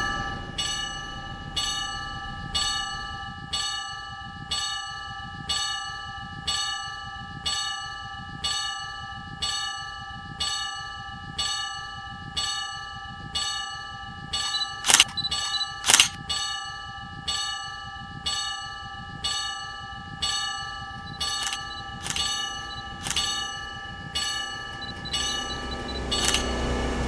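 Level crossing warning bell ringing steadily, about three strikes every two seconds. Two louder sharp clicks come around the middle, and a low rumble builds near the end.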